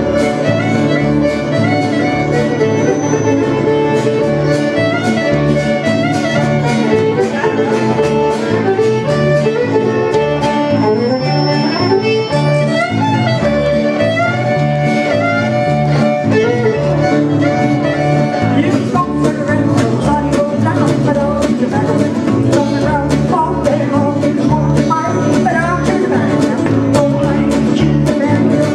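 Live country band in an instrumental break: a fiddle plays the lead with sliding notes over a steady bass beat and rhythm accompaniment.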